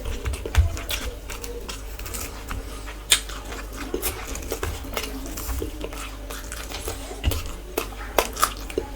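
Close-up eating sounds: chewing and mouth noises in an irregular run of small clicks, with light clinks of a plate and a sharper click about three seconds in.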